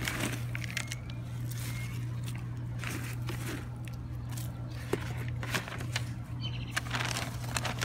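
Shredded-bark mulch rustling and crackling as a gloved hand scoops it from a plastic bucket and drops it onto soil, with scattered small clicks and scrapes over a steady low hum.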